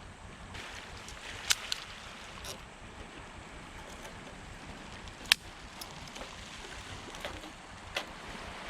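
Steady wash of waves breaking on the shore, with a few sharp pops from a wood campfire, the loudest about one and a half seconds and five seconds in.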